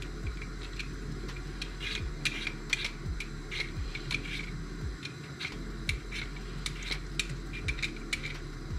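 Y-shaped vegetable peeler scraping the skin off small red potatoes in short strokes: an irregular series of crisp little scrapes. Behind it, a low steady hum from a pot of water boiling.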